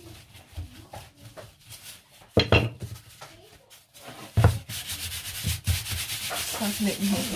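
Plastic-gloved hands rubbing and smoothing a sheet of rolled pasta dough on a floured stone countertop, with a rustle of gloves and flour. The dough sheet is thumped down twice, about two and a half and four and a half seconds in, followed by a longer stretch of hissy rubbing.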